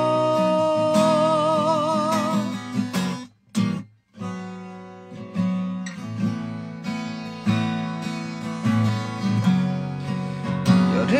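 A man's voice holds a long sung note with vibrato over a strummed acoustic guitar; about three seconds in, the guitar cuts off for a moment. Then the acoustic guitar plays on alone, strumming chords, and the voice comes back in near the end.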